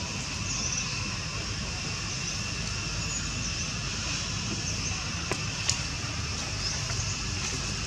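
Steady outdoor ambience: a constant high-pitched insect drone over a low rumble, with two faint clicks about five and a half seconds in.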